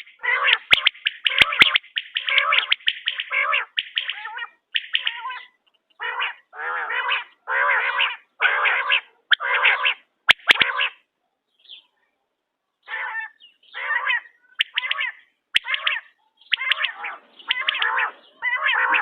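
Quail calling over and over, a quick series of short, pitched calls coming in runs, with a pause of about a second and a half midway.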